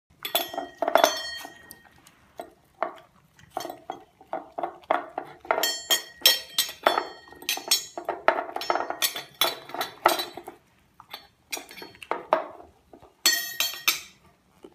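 A dog and a cat eating from pet bowls: the bowls knock and clink over and over, several knocks ringing on with a high metallic tone, among the animals' chewing and licking.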